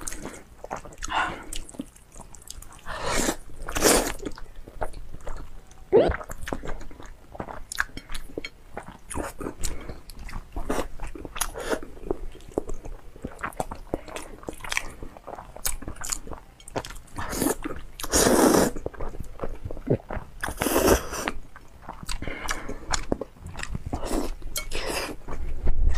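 Close-miked eating of spicy instant noodles: a run of wet chewing and mouth clicks, broken by several longer slurps of noodles a few seconds in and again about two-thirds of the way through. Near the end there is a soft bite into a boiled egg.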